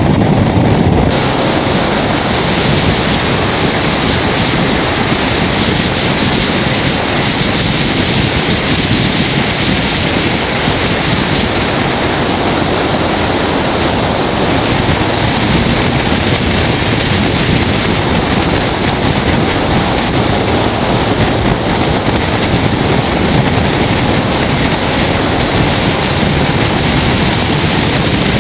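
Steady rush of wind buffeting the microphone of a camera mounted on the bonnet of a race car at track speed, with the car's running underneath.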